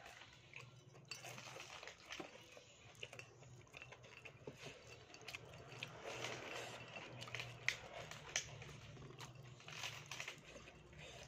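Close-up chewing of a mouthful of rice and crispy fried grasshoppers, with wet lip smacks and many small irregular crunches and clicks.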